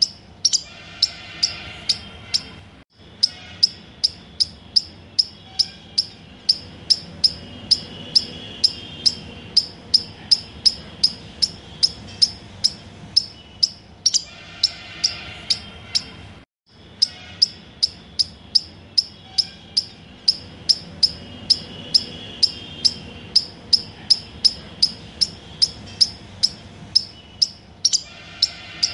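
Rhythmic sharp ticking, about two to three ticks a second, with a brief chirping sound every several seconds; the sound cuts out for a moment twice, as if a track were looping.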